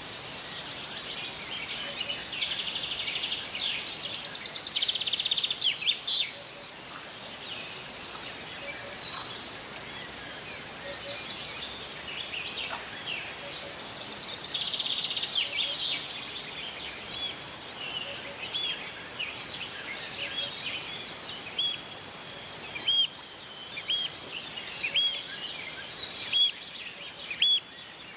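Wild birds singing: rapid, buzzy high trills come and go, and from about two-thirds of the way in a short hooked call repeats about once a second over a steady outdoor hiss.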